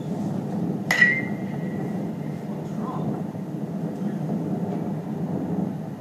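A metal baseball bat strikes a ball about a second in: a sharp crack with a high metallic ping that rings on briefly, over a steady low background rumble.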